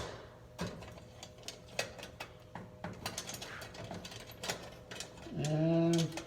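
Irregular small metallic clicks and ticks as a screw on a mailbox lock is worked loose, with a ratchet-like clicking. Near the end a man says a drawn-out "And".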